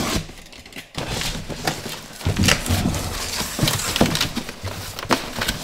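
Corrugated cardboard shipping box being opened and handled by hand: flaps scraping and rustling, with several sharp knocks as the contents are moved.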